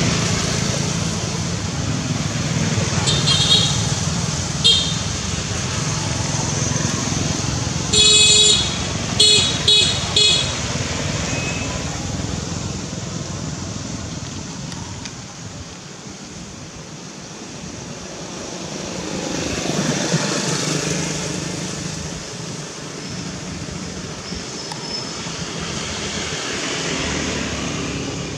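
Steady road traffic noise, with a vehicle horn tooting several times in quick succession about a third of the way in and a passing vehicle swelling up and fading later.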